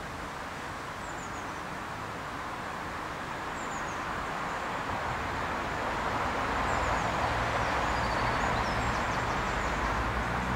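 Outdoor background noise: a steady wash of sound with a low rumble, swelling over several seconds, with a few short high bird chirps.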